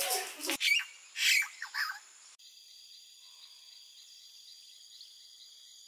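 A held tone breaks off about half a second in, followed by a few sharp bird chirps. After that comes a faint, steady chorus of insects: several unchanging high-pitched tones layered together.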